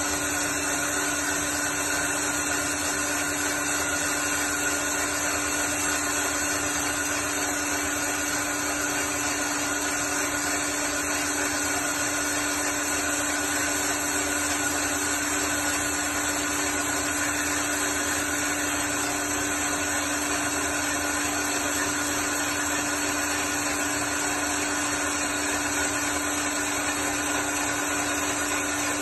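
Vertical bandsaw with a diamond blade cutting ceramic wet under flood coolant: a steady hum with a constant hiss, unchanging throughout.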